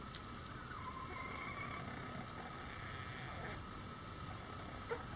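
A bantam chicken pecking at a hanging corn cob, with a sharp tap just after the start and another near the end. Under it runs a steady low rumble and a faint steady high whine, and there is a soft gliding chirp about a second in.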